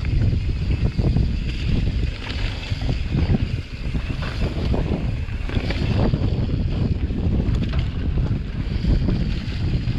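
Mountain bike riding down a dirt singletrack strewn with dry leaves: wind buffets the microphone and the tyres rumble over the ground. Many short knocks and rattles come from the bike jolting over bumps.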